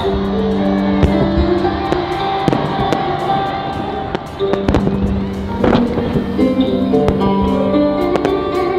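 The fireworks show's soundtrack music playing over loudspeakers, with held chords and a steady low note, as the first fireworks shells go off with sharp bangs through it, the loudest a little before five and six seconds in.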